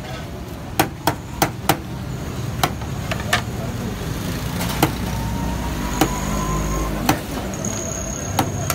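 Metal serving scoop knocking against a large metal platter of beef pulao as rice is scooped out and piled onto a plate: about ten sharp clacks at uneven intervals, four of them in quick succession about a second in. A steady low street hum runs underneath.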